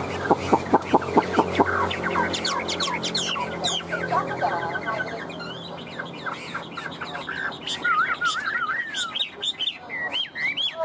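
Chinese hwamei singing: a rapid string of repeated sharp notes for the first couple of seconds, then varied whistled phrases with rising and falling glides and trills.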